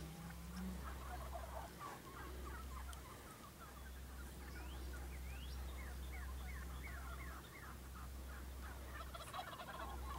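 Wild turkey tom gobbling several times, each gobble a quick rattling run of notes, over a steady low rumble.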